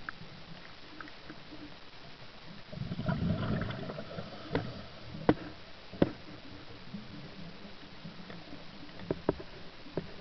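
Underwater sound picked up through a camera housing: a steady faint hiss, a low rushing rumble about three seconds in, and a few sharp clicks and knocks after it.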